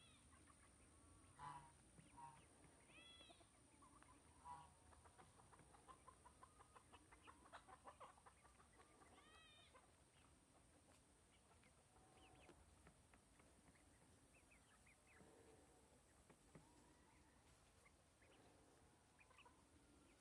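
Young Dorking chickens foraging, giving faint scattered chirps and short squawking calls, with a quick run of soft clucks about a third of the way in.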